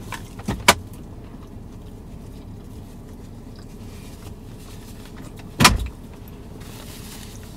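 Handling knocks inside a car's cabin: a sharp click about half a second in, then a heavier thud a few seconds later, as someone reaches across toward the passenger side.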